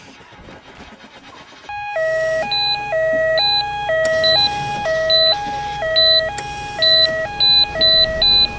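Ambulance two-tone hi-lo siren, switching back and forth between a low and a high note. It starts about two seconds in and speeds up near the end.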